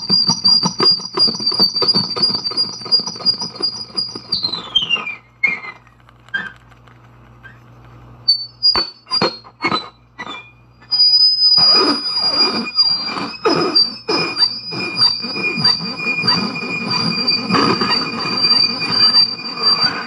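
Harsh electronic noise from a guitar effects pedal chain through a Fender amplifier. A steady high-pitched squeal over dense crackle glides down and cuts out about five seconds in, leaving a few scattered clicks. Dense crackling noise with a high whistling tone comes back about eleven seconds in.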